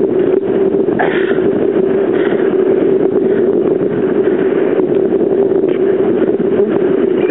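Steady, loud rushing of river water around an inflatable raft heading into a whitewater rapid.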